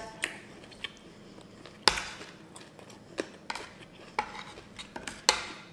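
Metal spoon and fork clinking and scraping against a ceramic dish of salad: a handful of short, sharp clinks spread over the seconds, the loudest about two seconds in.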